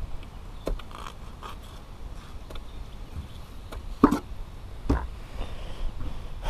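Fillet knife working on raw fish on a plastic cutting board: scattered light taps and scrapes of the blade against the board, with one sharper knock about four seconds in.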